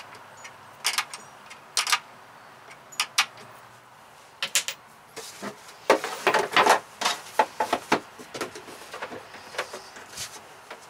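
Irregular sharp metal clinks and taps of a wrench on the bolts and cable lugs of battery terminals as the inverter cables are fastened, with a busier run of clinks about six seconds in.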